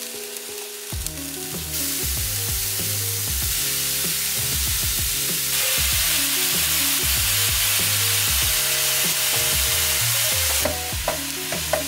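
Raw lean ground beef frying on a hot electric skillet, a steady sizzle that swells about two seconds in and again midway, then eases near the end.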